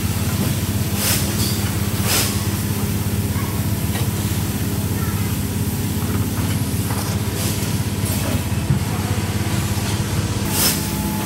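Pulp tableware production line machinery running with a steady hum. Short hisses break in about a second and two seconds in, and once more near the end.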